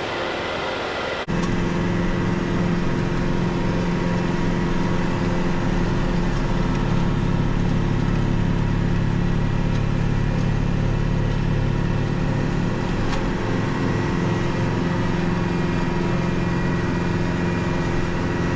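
Kubota MX6000 tractor's diesel engine running steadily with its WoodMaxx SB72 PTO snowblower engaged while clearing snow, a constant low engine tone with a sudden step up in level about a second in.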